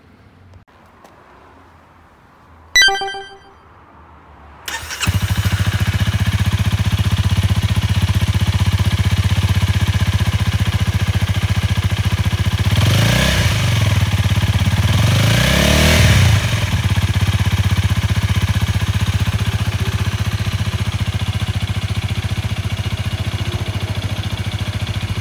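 A short bright beep, then about five seconds in a Honda Rebel 250's single-cylinder engine starts and runs loud through an aftermarket Over Racing SS megaphone muffler, idling steadily with two quick revs in the middle.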